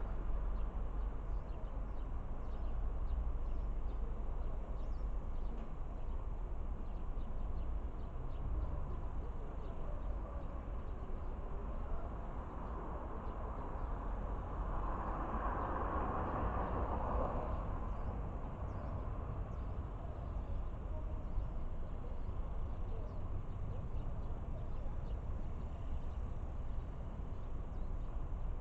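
Wind buffeting the microphone as a steady low rumble, with a broad swell of sound that builds and fades about halfway through.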